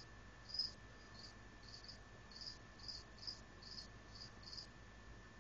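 A cricket chirping: short high-pitched chirps, about two a second, over a faint steady high tone.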